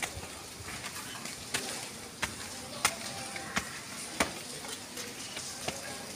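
Footsteps in sandals slapping on concrete steps while climbing a staircase: sharp slaps roughly every two-thirds of a second over a faint steady hiss.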